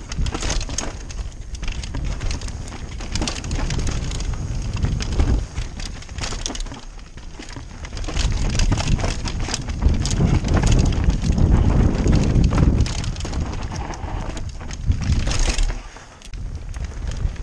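Downhill mountain bike ridden fast over a rocky dirt trail, heard from a chest-mounted camera: wind buffeting the microphone over tyres crunching on stones, with the frame and chain rattling in frequent sharp knocks. About sixteen seconds in it briefly goes quieter as the bike rolls onto smooth pavement.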